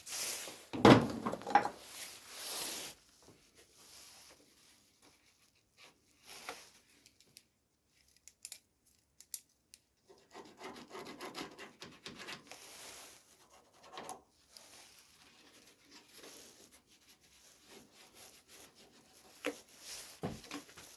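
Cardboard being handled and rubbed against the bodywork while a template is shaped and marked: irregular rustling and scraping in short bouts, the loudest about a second in, with a brief quiet spell near the middle.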